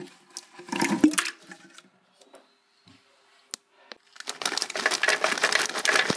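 Tinned plum tomatoes tipped out with a wet splat into a plastic blender jar, then a few light knocks. About four seconds in, a handful of cashew nuts pours onto them as a dense, continuous rattle of small hard clicks.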